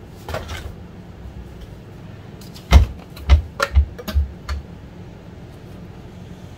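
Kitchen containers and a measuring spoon being handled at the counter while salt is measured out: a quick run of about five knocks and taps, starting about three seconds in.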